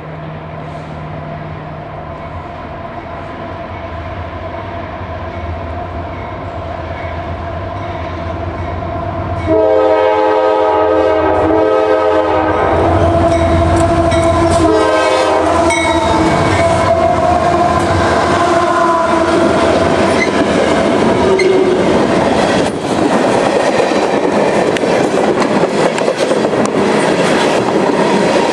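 A CSX freight train led by GE CW44AC diesel locomotives approaches with its engine rumble growing louder; about ten seconds in, the locomotive's multi-chime air horn sounds in several blasts of varying length for roughly ten seconds. The locomotives and cars then pass close by with loud wheel clatter on the rails.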